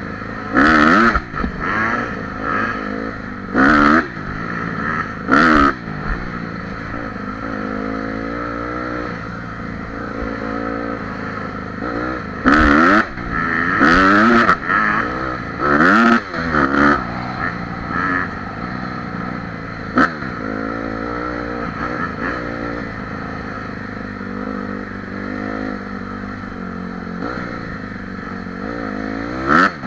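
Honda CRF150R dirt bike's four-stroke single-cylinder engine under riding load. The rider blips and opens the throttle in a string of short revving bursts, each rising and falling in pitch, through the first half. From about two-thirds of the way in, the engine runs more steadily at part throttle, with a sharp click near the middle.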